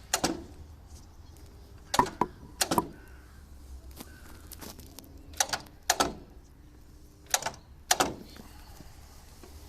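A series of sharp clicks and knocks, mostly in pairs about half a second apart, with no engine turning over.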